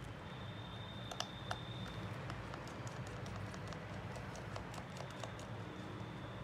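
Scattered light clicks and taps from small repair tools and phone parts being handled, over a steady low hum.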